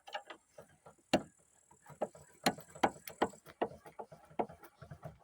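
Car's factory jack being cranked to lift the car: a run of irregular mechanical clicks and knocks, a few of them louder.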